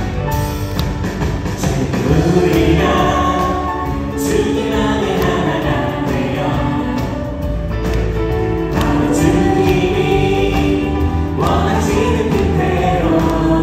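A praise-worship band of keyboard, electric guitar, bass guitar and drums playing a gospel praise song, with a group of singers singing along; the voices come in about two seconds in.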